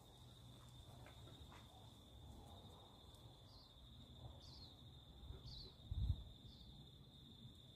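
Faint outdoor background: a steady high insect drone with a few short falling chirps about once a second, over a low rumble. A single low thump about six seconds in.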